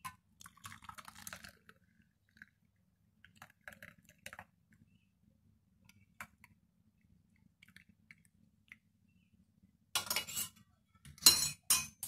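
Herbal tea being poured from a saucepan through a tea strainer into a cup: faint pouring and dripping, then a few louder clinks and scrapes of the strainer and pan about ten seconds in and near the end.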